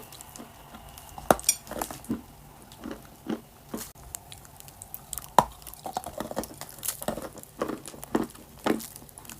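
Close-up crunching and chewing of eating clay: irregular crisp cracks as pieces are bitten and ground between the teeth, with sharper bites about a second in and again past the halfway mark.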